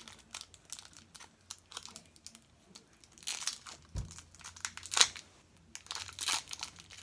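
Plastic wrapper of a Pulparindo tamarind candy crinkling and tearing in short bursts as it is pulled open, slow going because the sticky candy clings to it. A soft low thump about four seconds in, and the sharpest crackle a second later.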